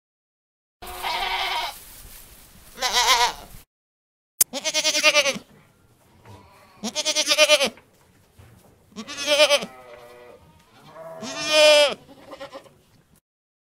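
Goats bleating: about six separate quavering calls, each under a second long, from two different recordings with a short silence between them.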